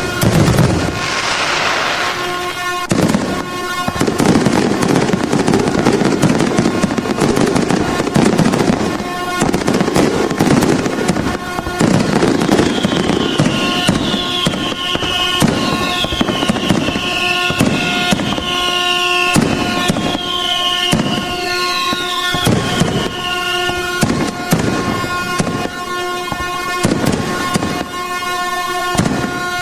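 Fireworks banging and crackling in quick, dense succession over a steady, unbroken air horn tone. Through the middle of the stretch comes a run of short falling whistles.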